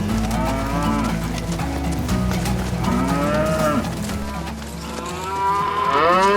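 Cattle mooing: three drawn-out calls rising and falling in pitch, the last near the end the loudest.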